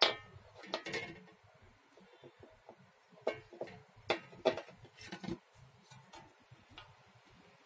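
Small metallic clicks and clinks as a saw bolt is pushed through the wooden handle and the steel saw plate is handled: a sharp click at the start, a few more about a second in, and a quick run of clinks between about three and five and a half seconds.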